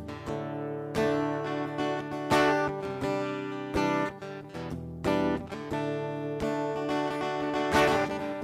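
Acoustic guitar strummed, a chord about every second, each left to ring: the instrumental intro of a worship song before the singing comes in.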